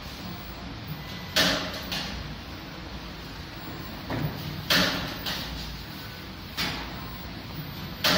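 Mono Omega wirecut cookie depositor cycling as it cuts and deposits dough pieces: a sharp stroke with a short hiss repeats about every three seconds, with lighter strokes in between, over a steady machine hum.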